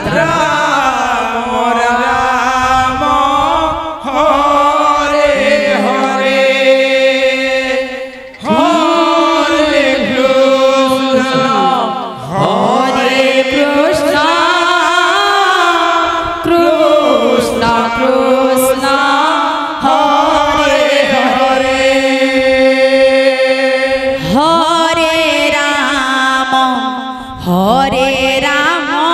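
Devotional kirtan: a voice chanting long, held melodic phrases that break about every four seconds, with a double-headed barrel drum beaten underneath.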